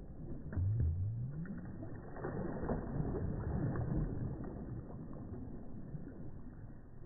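A small wave breaking close by and washing in, swelling about two seconds in and fading away. Just before it, a brief low sound that rises in pitch.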